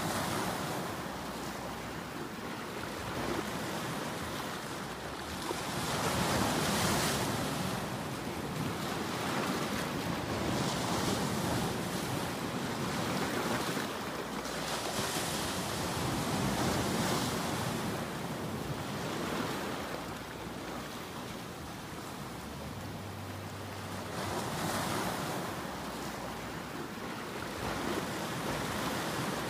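Ocean surf: waves breaking and washing in a continuous rush that swells and ebbs every few seconds.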